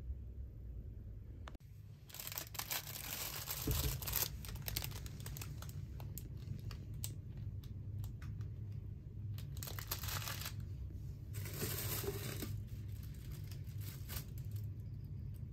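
Clear plastic packaging of disposable hotel slippers crinkling and rustling as it is handled, in several spells with small clicks, over a steady low hum.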